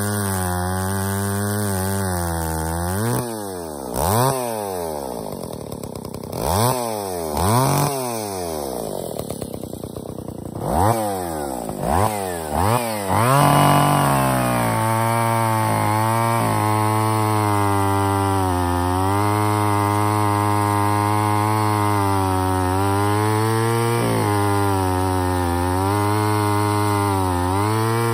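John Deere 80EV two-stroke chainsaw with a 24-inch bar cutting through a log, the engine holding a steady pitch under load. About three seconds in it revs up and down several times between cuts, then about fourteen seconds in it settles into another long, steady cut.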